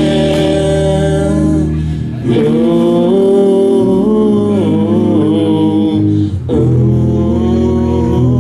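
Live rock band playing: electric guitar, bass guitar and drums under long held sung vocal notes. It breaks off briefly twice, about two seconds in and again past six seconds.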